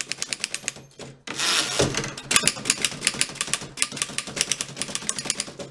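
1915 Fox No.24 typewriter being typed on fast, keystrokes clacking about eight to ten a second. About a second in there is a short pause, then a longer sliding rush ending in a thump, typical of the carriage being returned, before the typing picks up again.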